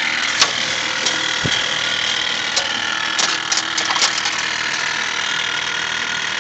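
Steady mechanical whirring with irregular clicks from a 2006 Ford F-250 with a 6.0 Power Stroke diesel as it fails to crank: the weird noise it makes instead of turning over.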